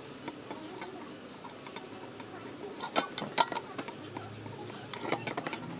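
A utensil scraping and tapping against the metal inner pot of a rice cooker as fat is spread to grease it: scattered light clicks, with two sharper knocks about three seconds in and a quick run of clicks near the end.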